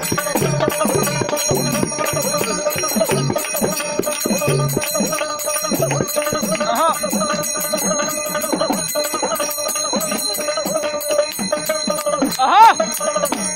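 Baul folk music with small brass hand cymbals ringing on every stroke, over quick hand-clapping and a small hand drum beating in the first half.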